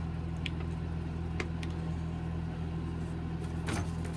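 Paper leaflets handled and shuffled, giving a few faint crinkles, the loudest near the end, over a steady low machine hum.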